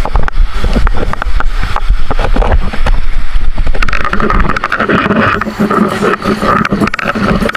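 Body board sliding down the wet rock face of a natural rock waterslide, rattling and scraping over the bumpy rock amid rushing water. A dense run of knocks over a low rumble gives way to a steadier rush about four seconds in.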